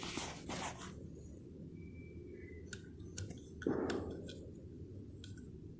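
Handling noises from an opened submersible water pump: a few short rustles and scrapes and scattered small clicks as the cover and parts are moved, with a louder scrape about two-thirds of the way through.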